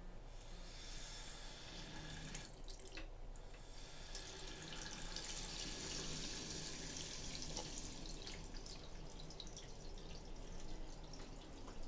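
Faint hiss of water as a bathroom sink faucet is slowly opened with a hose adapter on its spout, feeding an RO/DI filter system; the hiss grows louder over the first several seconds, then holds steady.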